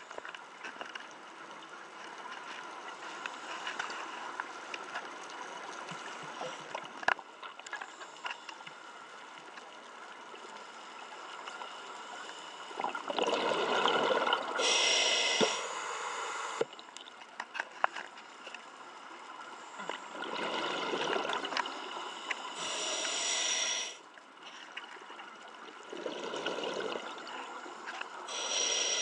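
Scuba diver breathing through a regulator underwater: three breaths starting about halfway through, each a bubbling exhale followed by a sharp hissing inhale, roughly every six or seven seconds. A faint underwater hiss with scattered small clicks runs beneath.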